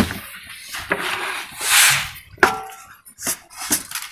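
Wooden knocks from a long wooden pounding pestle at a floor mortar, a scraping swish, and a short ringing clink of a steel plate, as pounded rice powder is handled. There are several separate knocks.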